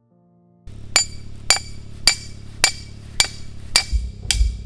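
Hammer striking a steel peg or stake to drive it into the ground: sharp metallic clinks with a short ring, evenly spaced at about two a second, starting about a second in.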